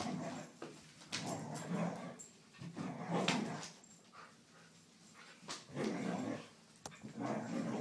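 Vizsla puppy vocalizing in about five rough bursts of around a second each, with short pauses between.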